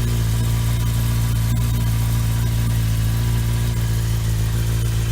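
Suzuki GSX-R SRAD motorcycle's inline-four engine running at a steady speed through an adapted aftermarket exhaust. The pitch holds level, with no revving.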